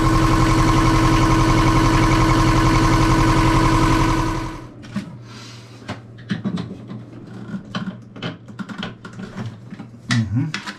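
Boat's inboard diesel engine running steadily, then shut off about four seconds in. After that come light clicks and rubbing as a hand handles the plastic raw water filter housing.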